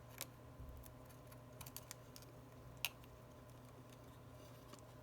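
A few faint, sharp clicks of a small screwdriver tip prying and tapping at parts inside an iPhone 11 Pro, over a low steady hum.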